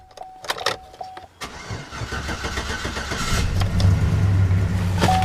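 Chevrolet 5.3-litre LC9 aluminium-block V8 being cranked on a weak jump pack, catching about two seconds in and settling into a steady idle. A dashboard warning chime beeps several times at the start.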